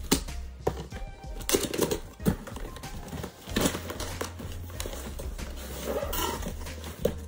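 Scissors slitting packing tape on a cardboard box, then the box flaps being pulled open: cardboard rustling and scraping with irregular sharp knocks, over background music.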